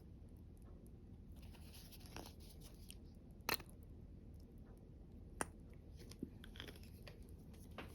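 Quiet kitchen handling sounds: soft rustling with two sharp clicks about two seconds apart and a fainter tap after them.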